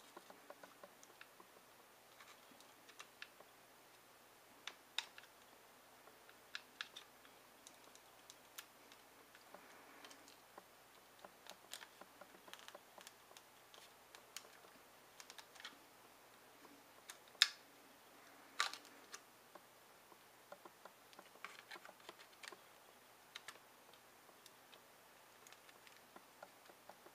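Faint scattered clicks and taps of a Hitachi laptop SATA hard drive being handled and fitted into a metal USB enclosure tray while its connector is lined up. Two sharper clicks come about two-thirds of the way through.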